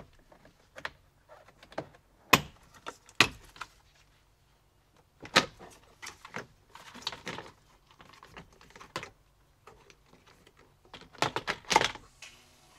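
Plastic retaining clips of a 2015 Ram Promaster 1500's door window-frame trim popping loose as the trim is pried off with a plastic trim tool. It sounds as a scatter of sharp clicks and snaps, with a quick run of them near the end as the trim piece comes free.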